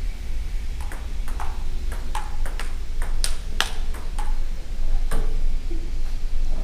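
Table tennis rally: the ball clicks sharply off the table and paddles, about a dozen hits, some in quick pairs, from about a second in to about five seconds in.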